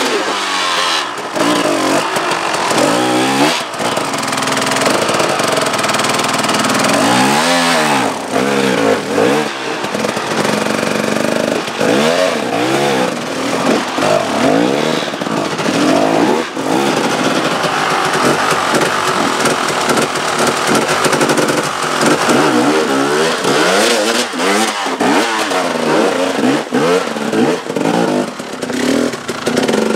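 Enduro dirt bike engine revving up and down over and over, the throttle blipped and rolled on and off as the bike works through rocks.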